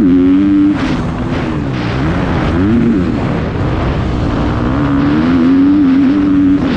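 Motocross bike engine at full race pace, revs climbing and dropping through the ruts and a bend, then held high and steady down a straight near the end. Wind rush and track noise on the helmet-mounted microphone.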